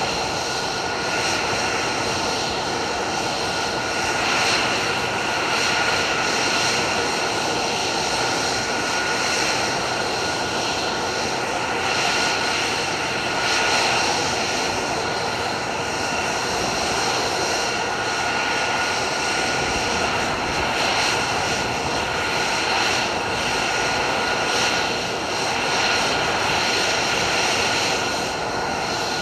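F-35 Lightning II's F135 turbofan jet engine running steadily: an even rushing noise with a constant high whine over it, neither rising nor falling.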